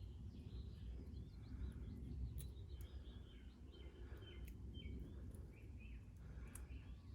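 Faint birdsong: a run of short chirps over a steady low rumble, with a few light clicks.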